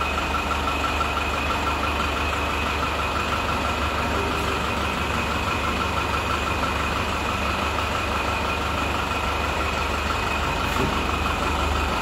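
Tata 407 minibus's diesel engine idling steadily, with a steady high whine over the low engine note.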